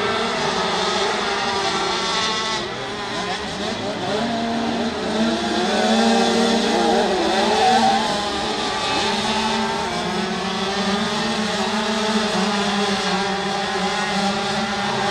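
Several crosskart engines racing together, their overlapping notes rising and falling as the karts accelerate and ease off through the corners, loudest about six to eight seconds in.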